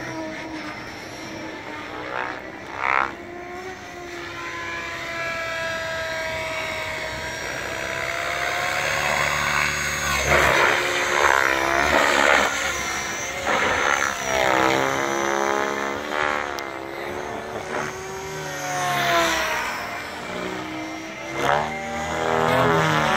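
Radio-controlled helicopter flying 3D aerobatics, its rotor and motor pitch sliding up and down with each manoeuvre. Loudest about ten to thirteen seconds in, as it passes close.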